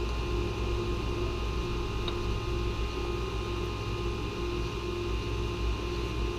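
Steady low hum and whir of running machinery, with a faint pulsing tone above it and a single faint click about two seconds in.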